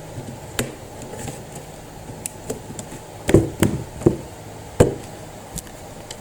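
Clicks and knocks of a Lenovo Yoga 500 laptop's bottom cover being pried open and handled. The cover's edge clips come loose. A cluster of about four louder knocks comes a little past halfway.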